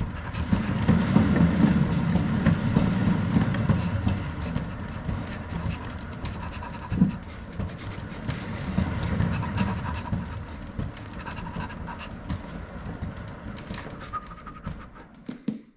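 Wooden cat exercise wheel rolling on its base under a walking cat: a steady low rumble with a fine clatter. One sharper knock comes about halfway. The rumble fades over the last few seconds as the wheel slows to a stop.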